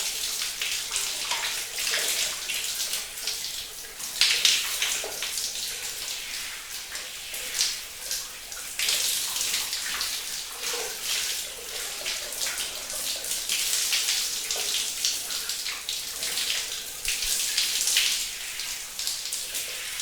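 Shower water running steadily, spraying and splashing with constant uneven patter, until it stops just after the end.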